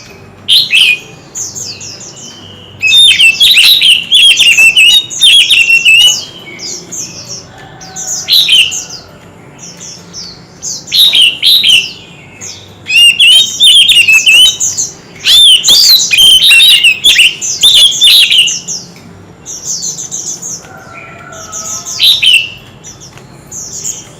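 White-rumped shama singing in competitive, fired-up song: loud, varied whistled phrases with fast up-and-down glides, in bursts of a second to several seconds separated by short pauses.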